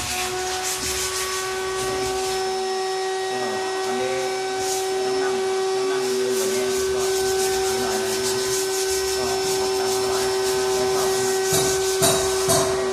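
Electric motor of a power tool running at a steady speed with a constant whine; a few sharp knocks come near the end.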